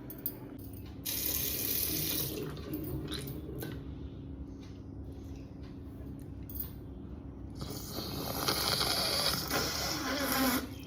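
A person blowing their nose hard, twice: a short blow that starts abruptly about a second in, and a longer, louder, wet blow of about three seconds near the end.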